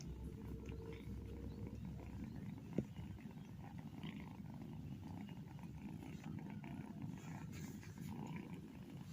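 Domestic cat purring steadily, a low rumble, with one sharp click about three seconds in.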